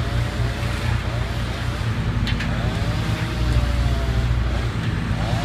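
Heavy truck engine running steadily at a low, even hum, typical of the bucket truck or crane powering the lift work, with a brief click about two seconds in.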